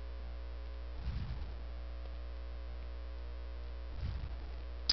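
Steady low electrical mains hum picked up on the recording, with two soft low puffs about a second in and about four seconds in, and a short sharp click near the end.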